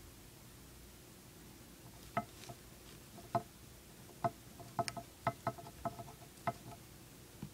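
Dwarf hamster gnawing a cheese chew: an irregular run of small, sharp crunching clicks that starts about two seconds in and ends near the end.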